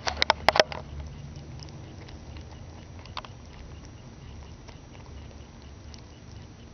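Rabbit nibbling and chewing a piece of banana, with faint scattered small clicks. A quick cluster of loud, sharp knocks in the first second.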